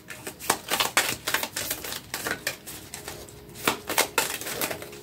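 Oracle cards being shuffled and drawn from a deck by hand: an irregular run of quick, light clicks and snaps of card stock.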